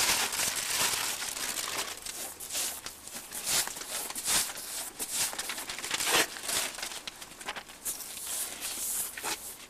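Rolled paper poster and paste bag crinkling, and a brush swishing wallpaper paste onto a rough wall in irregular scratchy strokes.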